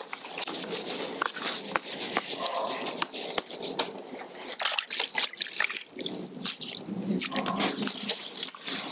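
Hands squeezing and kneading wet fishing groundbait in a plastic bowl, making an irregular run of wet squelches and crackles. The bait is being wetted into a loose 'soup' mix.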